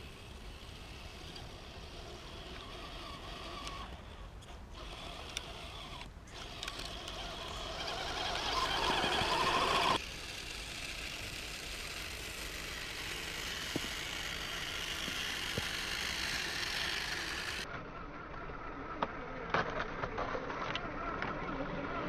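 Electric motors and gear drive of a three-motor scale RC crawler on snow tracks, whining as it pushes through deep snow. The whine grows louder and rises about eight to ten seconds in, then cuts off suddenly and carries on steadier, with a few sharp clicks near the end.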